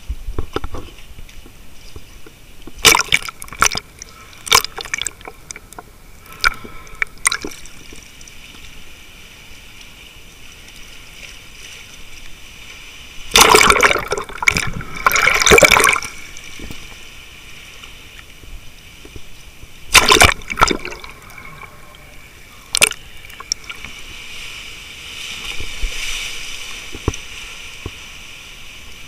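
Sea water sloshing and gurgling around a camera held at the waterline in waves, muffled while it is under the surface. Sudden splashes break through several times, the longest cluster about halfway through.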